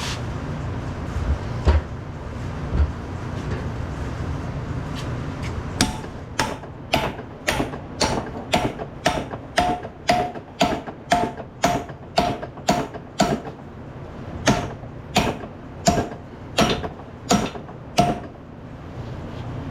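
Hammer striking metal, about two blows a second with a short metallic ring after each. The blows start about six seconds in and stop near the end, after a stretch of steady low shop noise.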